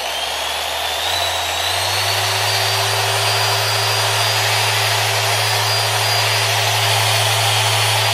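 Porter-Cable 7424XP dual-action (random-orbit) polisher running unloaded with its pad spinning free. Its motor whine steps up in pitch twice in the first couple of seconds as the speed dial is turned up to the top setting, then holds steady.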